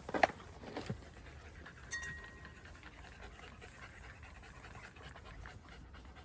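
Beagles panting steadily, with a few sharp clicks in the first second and a short high tone about two seconds in.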